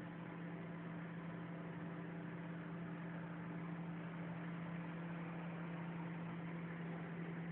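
Steady machine hum: a constant low tone with overtones over an even hiss, unchanging throughout.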